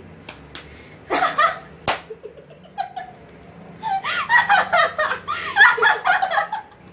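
Several young women laughing together: a short burst about a second in and a longer stretch of laughter from about four seconds until shortly before the end. A few sharp smacks sound in the first two seconds.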